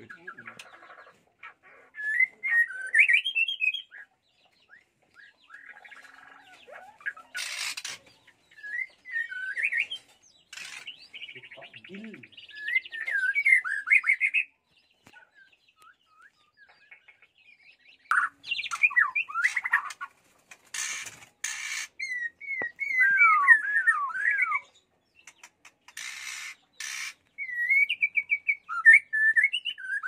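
White-rumped shama singing in short phrases of quick rising and falling whistled notes, spread throughout with brief pauses. A few short sharp noises fall between the phrases.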